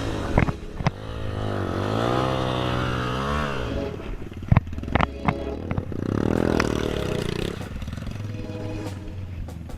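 Trail motorcycle engine revving: its pitch rises and falls twice, with a few sharp clattering knocks in the middle.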